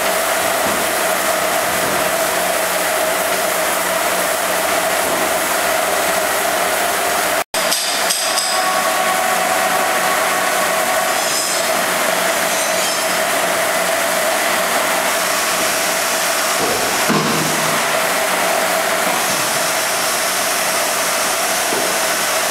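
TOS FS 100 K/A 2 CNC table milling machine running: a steady mechanical whir with a constant mid-pitched tone, cut off for an instant about seven and a half seconds in.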